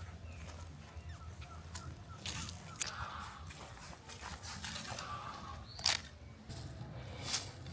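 Dry leaves and twigs crackling and rustling as they are handled and stepped on, in uneven bursts. Birds call faintly behind.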